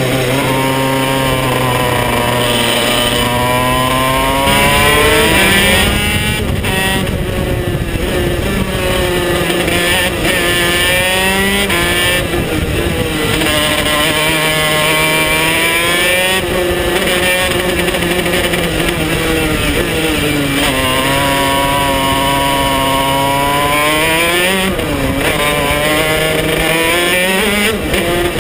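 KZ125 shifter kart's 125 cc two-stroke engine heard from onboard, running hard on track with its pitch rising and falling again and again as it accelerates and slows.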